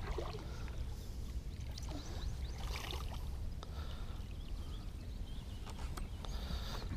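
Faint water splashing and sloshing from a hooked northern pike thrashing at the surface beside the boat, over a steady low rumble.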